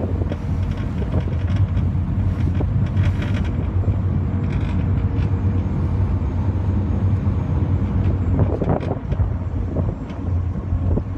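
Ferry's engine running as a steady low drone, with wind buffeting the microphone and a brief burst of noise about eight and a half seconds in.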